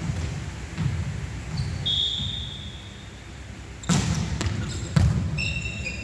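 A volleyball being struck by hands twice, about a second apart, each a sharp slap that echoes around a large gym hall. Sneakers squeak on the wooden court, once about two seconds in and several times near the end.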